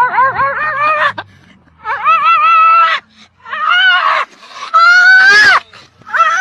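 A husky-type dog vocalizing in high, wavering yowls. It starts with a quick run of about six short rising-and-falling yips, then gives several longer calls; the longest, about five seconds in, rises and then falls away at its end.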